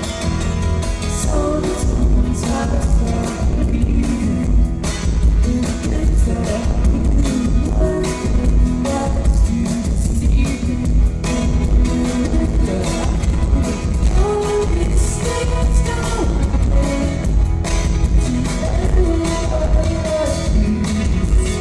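Live band playing through a PA system, heard from the crowd: drums, bass guitar, keyboard and acoustic guitar, with a woman singing.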